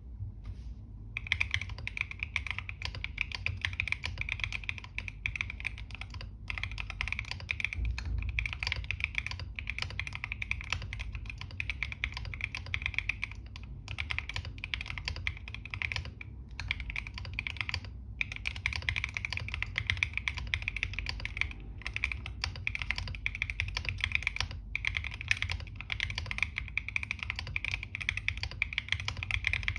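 Continuous fast typing on a GMK67 mechanical keyboard: a dense run of key clacks with a few short pauses, over a steady low hum.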